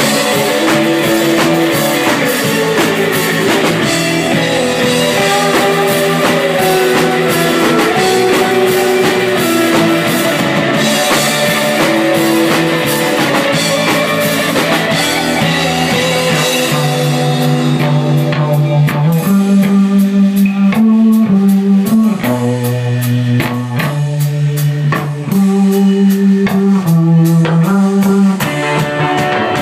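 Rock band playing: a drum kit driving the beat under guitar. A little past halfway the music thins to a sparser section of low repeated notes punctuated by hard drum hits.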